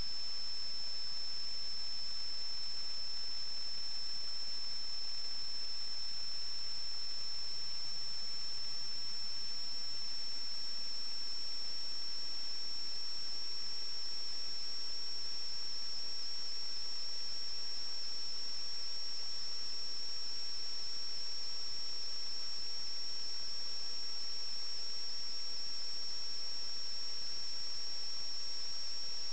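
Steady high-pitched electrical whine over a constant hiss, with the whine drifting slightly higher partway through.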